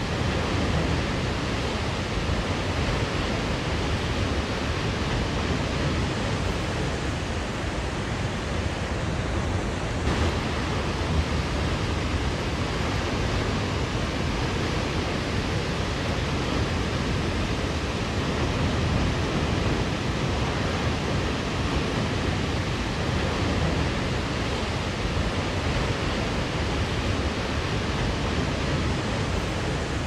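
Waterfall: a steady, unbroken rush of falling water plunging into a canyon pool.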